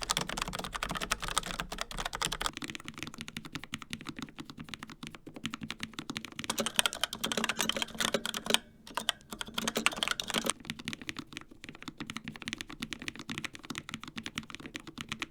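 Fast typing on mechanical keyboards: a stream of rapid keystroke clicks and clacks. It starts on a Logitech MX Mechanical with Kailh Brown switches and partway through moves to a Razer Pro Type Ultra with Razer Orange switches.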